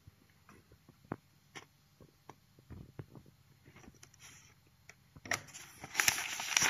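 Paper instruction manual handled with faint taps and light rustles, then a page turned with a louder rustle of paper about five seconds in.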